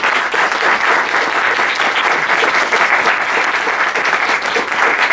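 Audience applauding at the end of a speech: a dense, steady round of hand clapping.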